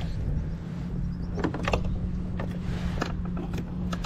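A small electric motor running with a steady low hum, with a few sharp clicks and knocks in the second half.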